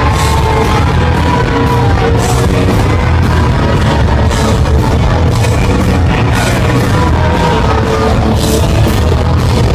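Live rock band playing loudly, with a sung vocal line over guitars and drums, heard from inside the concert crowd.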